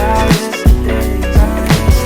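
Background pop song in a gap between sung lines: a steady drum beat with guitar.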